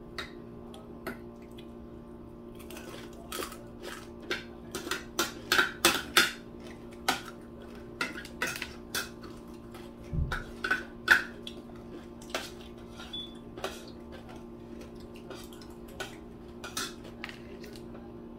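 Forks and metal tongs clinking and scraping against plates and aluminium foil food trays at a meal: an irregular run of sharp clicks, busiest in the middle, over a faint steady low hum.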